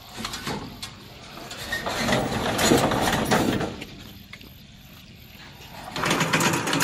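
Loncin petrol engine of a rubber-tracked remote-control lawn mower running as the machine drives down steel loading ramps, with clanks and rattles. It gets louder in two stretches, about two seconds in and near the end.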